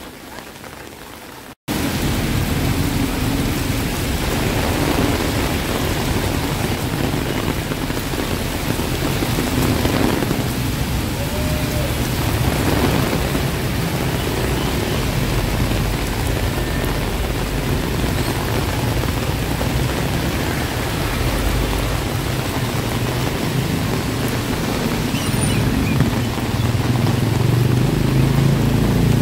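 Heavy rain pouring down in a steady, dense hiss, which jumps suddenly louder about two seconds in.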